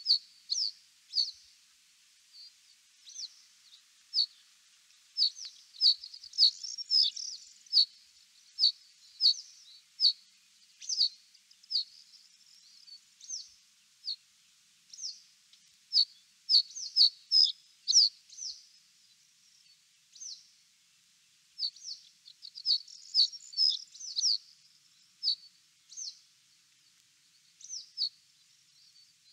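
Small birds chirping: short, high notes repeated one or two a second, with busier flurries of overlapping calls in places.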